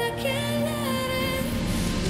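Background music with a held melody that glides between notes over low sustained tones.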